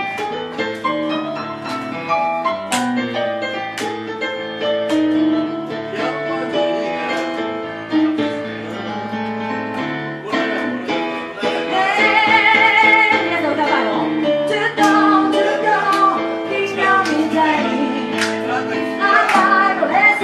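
Digital piano playing a soul-jazz accompaniment, with a woman singing a held, wavering note about midway.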